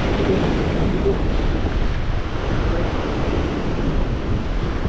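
Waves breaking against a rocky shore, with wind buffeting the microphone: a steady rushing noise.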